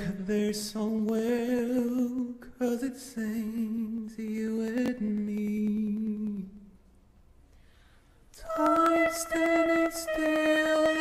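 Boy soprano singing a slow song solo, unaccompanied, with vibrato on the held notes. The voice breaks off about six and a half seconds in and comes back about two seconds later on higher, louder notes.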